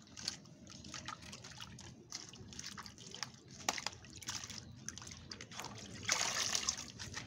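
Gayam (Tahitian chestnut) seeds being washed by hand in a plastic basket sitting in a bucket of water: small splashes and trickles as they are rubbed and stirred. About six seconds in the basket is lifted and water runs out through it for about a second.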